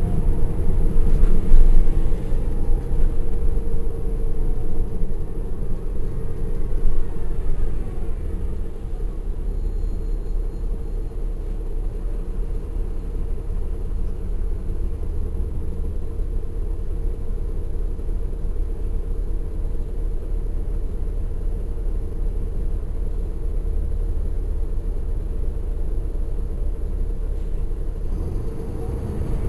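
Caterpillar C13 ACERT diesel engine of a 2009 NABI 416.15 transit bus running, heard from on board at the rear. A steady low rumble, louder in the first few seconds, then settling to an even, lower level from about eight seconds in.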